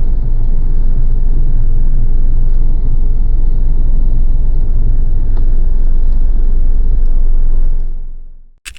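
Mitsubishi Pajero's diesel engine running as the vehicle drives, heard from inside the cabin as a loud, steady low rumble. The rumble dies away near the end.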